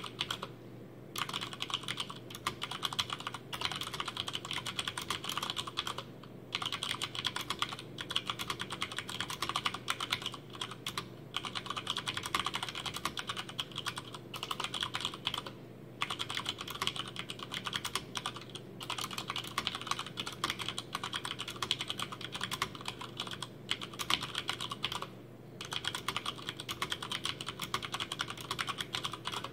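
Continuous typing on a Hansung GO187 VIKI mechanical keyboard with Cherry MX Brown switches, unlubricated and without sound-dampening foam. Rapid key presses run on steadily, broken by about five brief pauses.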